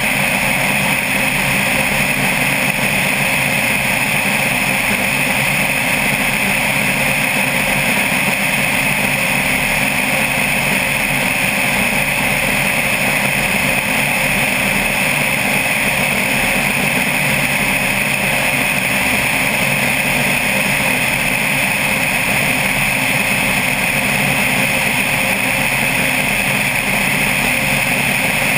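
Single-engine propeller floatplane in cruise flight: a steady drone of the engine and spinning propeller, heard from a camera mounted outside the cabin.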